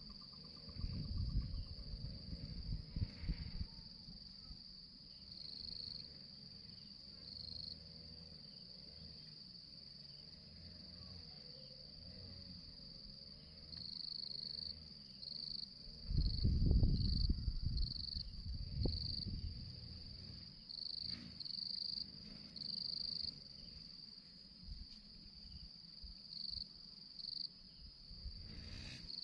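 Insects trilling in the grass: one steady high-pitched trill, with shorter pulsed calls joining in about halfway through. Low rumbles come a couple of seconds in and again in the middle, the middle one the loudest sound.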